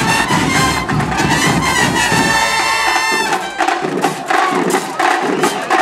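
School marching band playing: brass (sousaphones, trumpets, trombones, saxophones) over marching drums. About halfway through, the deep bass thins out while the drumming and higher brass carry on.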